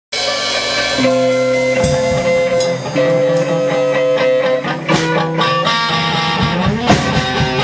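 Electric guitar playing held chords that change every second or two, with the band's drums coming in near the end.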